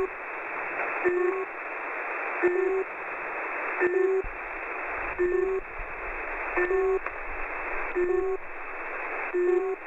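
Russian shortwave 'buzzer' station UVB-76 on 4625 kHz, received through a web SDR in upper sideband: a short two-tone beep repeating about every second and a half over steady radio static. The station is sending this two-tone beep rather than its usual buzz.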